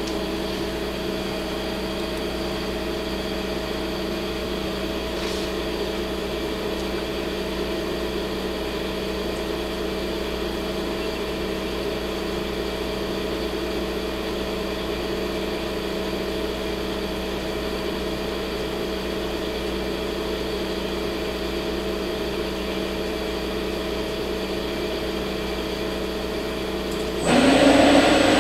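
Turret lathe running with a steady hum of several constant tones. Near the end it turns suddenly louder, with a hiss and a high steady whine, as the coolant pump comes on and coolant starts to flow.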